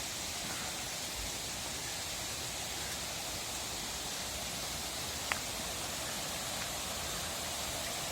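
Steady rushing of a mountain stream, an even hiss of running water, with one short click about five seconds in.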